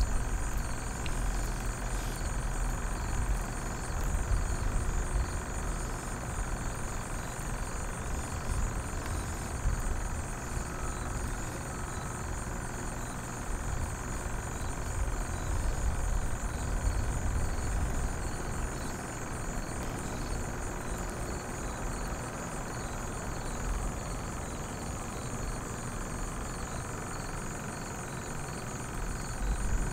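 Wind buffeting the microphone: a low rumble that rises and falls unevenly, over a steady high-pitched drone.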